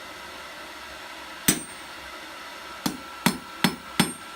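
Blacksmith's hammer striking hot rebar on an anvil to clean up a forged bottle opener's shape. One blow comes, then after a pause a steady run of blows at about three a second, each with a short metallic ring.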